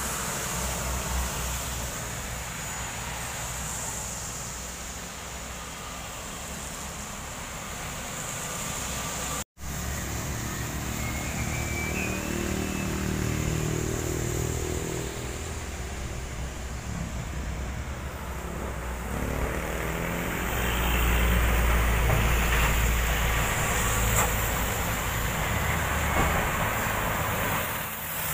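Road traffic on wet asphalt: diesel trucks passing with engine rumble and tyre hiss. The sound drops out briefly just over nine seconds in, and a truck passing close makes the rumble louder in the last third.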